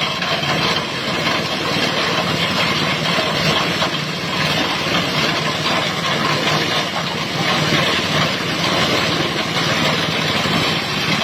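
Plastic shredding machine running steadily, a continuous loud mechanical noise with no pauses.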